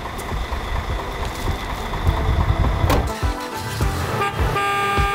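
Street traffic with vehicle engines running, a single sharp knock about three seconds in, then music comes in.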